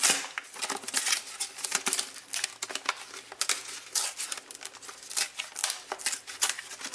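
Cardboard-and-plastic blister package being torn open and crinkled by hand: a continuous run of irregular crackles and small rips.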